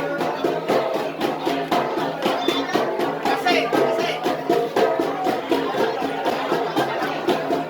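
Igorot gangsa, flat bronze gongs, played as an ensemble in a fast, steady rhythm of overlapping ringing strikes, several a second.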